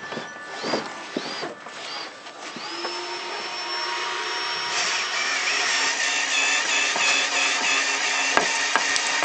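Power drill triggered briefly a few times, each a short rising and falling whine, then spinning up about three seconds in and running steadily. The whine fills out and grows louder as the bit bores into a wooden deck board around a screw.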